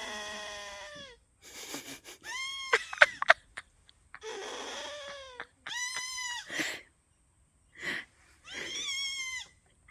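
Goat bleating, about six drawn-out, wavering calls with short gaps between them.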